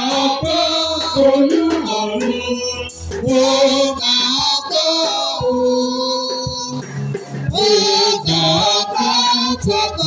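A choir singing a song together, with several voices carrying the melody.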